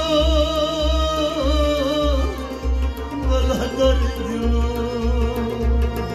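Sufi song with a male voice singing a long wavering melismatic phrase through the first two seconds and a shorter one near the middle, over a harmonium's steady held notes and a hand drum keeping an even beat.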